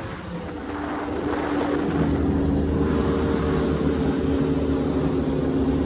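Powerboat engine running at speed with water and spray rushing past; a steady engine tone that grows louder over the first two seconds, then holds.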